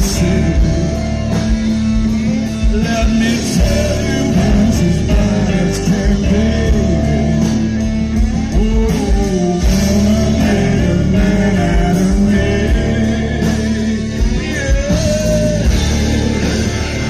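Live rock band playing loudly through a stage PA: electric guitars, bass, drums and keyboard, with a man singing.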